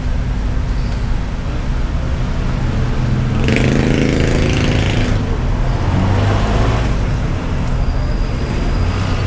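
Steady rumble of road traffic, with one louder vehicle passing about three and a half seconds in, its engine heard for about a second and a half.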